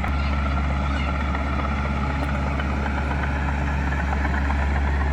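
Heavy construction-machine diesel engine running steadily with a deep, even drone.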